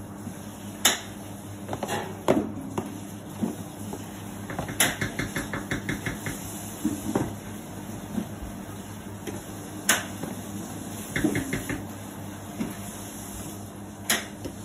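A metal spoon knocking and scraping against ceramic baking dishes and a plastic tub as a purée is spooned into the dishes. There are sharp clinks every few seconds and two short runs of quick light tapping, over a steady low hum.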